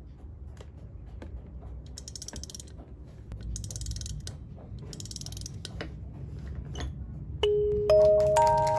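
Small clicks and taps of objects handled on a desk, with three short bursts of plastic-packaging rustle a few seconds in. Near the end, background music of chiming mallet notes comes in.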